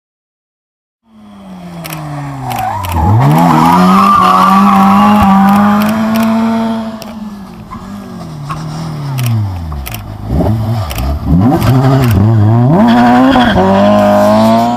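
Silence for about a second, then a rally car's engine at high revs. It runs hard through several gear changes, eases off, blips up and down while braking and downshifting for the corner, then accelerates hard away past. The sound drops off sharply at the end.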